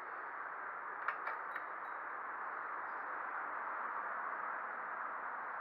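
A pull-chain lamp socket switch clicking once sharply about a second in, followed by a couple of lighter clicks as the chain is released, over a steady hiss.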